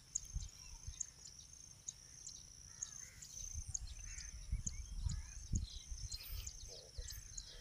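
A cricket chirping in a steady rhythm, about two short high chirps a second, with a few faint bird calls. Soft low knocks come through around the middle.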